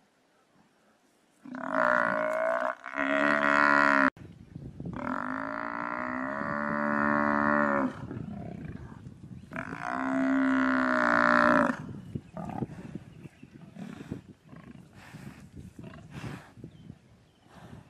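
Cape buffalo bellowing in distress as lions bite into it. Four drawn-out moaning bellows, the longest about three seconds, each sagging in pitch at its end, followed by faint short scuffling sounds.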